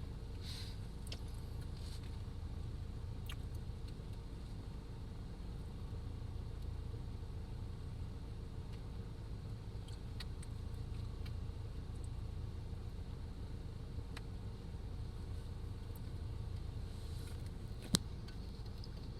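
Steady low rumble of a car driving, heard from inside the cabin, with a few light clicks and one sharp click near the end.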